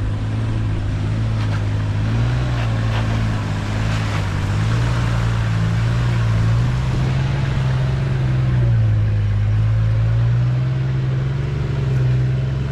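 Diesel four-wheel-drive engine running at low revs, its note rising and falling gently as the vehicle is driven slowly over rough off-road ground.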